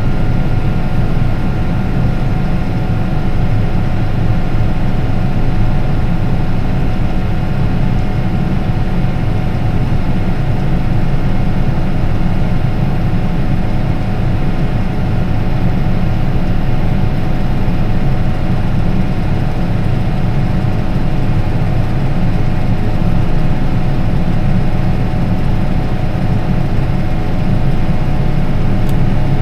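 Tractor engine running steadily under load while the grain cart's augers unload grain into a truck, with a faint steady whine above the engine noise.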